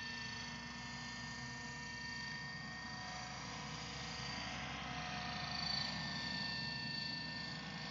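Align T-Rex 600 radio-controlled helicopter flying some way off: a steady thin whine whose pitch drifts slightly, getting a little louder a bit past halfway.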